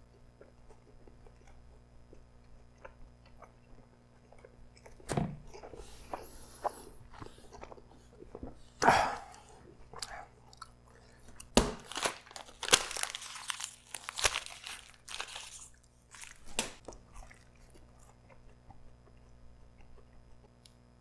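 Close-up biting and chewing of a crisp folded pizza crust stacked four layers thick. The crust crunches sharply in a cluster through the middle, with quieter chewing at the start and near the end.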